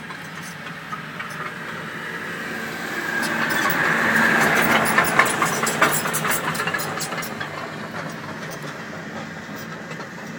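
A vehicle running and rolling slowly, heard from inside its cab. About three seconds in a hiss swells up, loudest around four to six seconds in, with a run of sharp crackles through the middle before it settles back to the steady engine and road noise.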